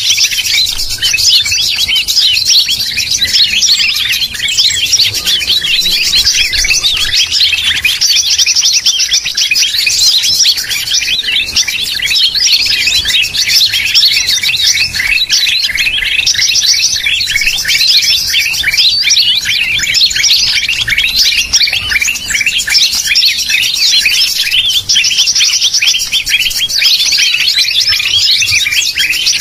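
Greater green leafbird (cucak ijo) song played as a bird-trapping lure call: a loud, unbroken stream of rapid chirps and whistles, with a buzzy rapid trill breaking in a few times.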